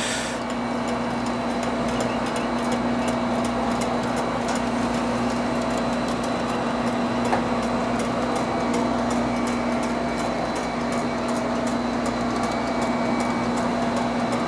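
Selmi chocolate enrober running steadily: an even motor hum with a constant tone, and a regular light ticking throughout as cookies are carried on its wire-mesh belt through the chocolate curtain.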